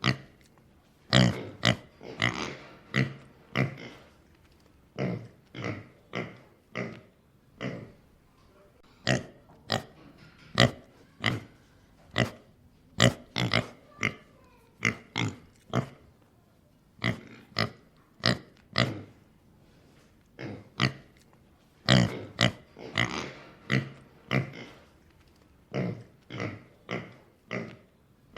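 A pig grunting: a long, irregular series of short grunts, often two or three in quick succession, with brief pauses between the runs.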